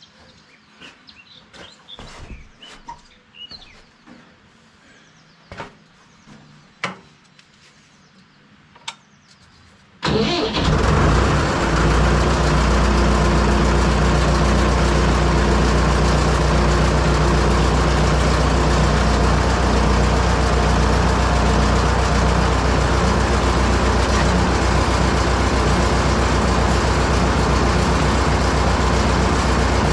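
A few sharp knocks, then about ten seconds in the Fordson Major tractor engine starts and settles into a steady run, powering the PTO-driven backhoe hydraulics.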